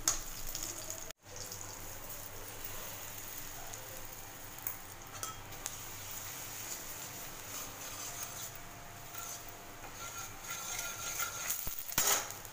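Oil sizzling in a steel kadai as a tempering of cumin, cashews and chilli fries, with a metal spatula scraping and stirring against the pan. The sound drops out briefly about a second in, and there is a louder scrape near the end.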